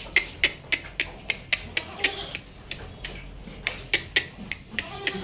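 A calf feeding with its muzzle in a plastic bucket, making a run of sharp, irregular clicks at about three a second.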